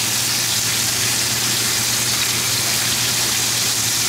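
Bacon frying in a hot pan, a loud, steady sizzle, with a low steady hum underneath.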